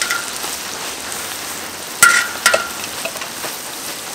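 Hot oil sizzling steadily in a large wok as a batch of grasshoppers deep-fries. Sharp metallic clinks with a short ring, twice about two seconds in, from the wire-mesh strainer knocking against the wok.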